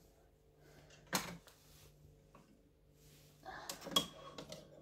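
Handling noise at a Brother embroidery machine while its thread is changed to a red spool: a sharp click about a second in, then rustling with small clicks and knocks near the end as the spool and thread are handled.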